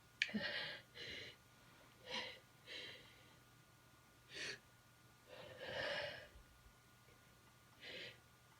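Short, quiet breaths and gasps, about seven of them spaced a second or so apart, the longest a little past the middle: a person's breathing as a sneeze builds and then stalls, stuck.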